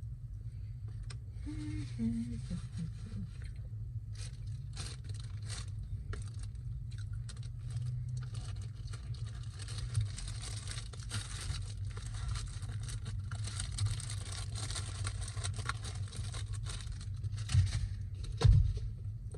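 Steady low hum of an idling car in the background, with rustling and crinkling of food packaging being handled for several seconds. A short low sound falling in pitch comes about two seconds in, and two thumps come near the end.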